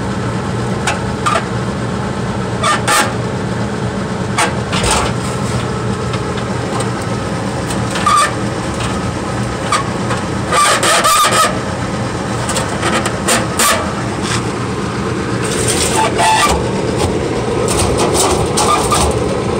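Knocks and short metallic rattles of a furnace's sheet-metal access panel being handled and fitted back on, a cluster of them about 11 s in, over a steady low hum.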